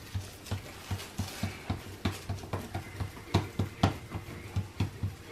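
Hands patting and flattening balls of corn masa dough into small tortillas: a quick, uneven run of soft slaps, about four a second, over a low hum.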